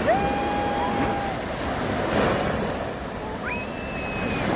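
Sea surf washing and breaking, with a small child squealing twice: a long held squeal at the start and a higher-pitched one near the end.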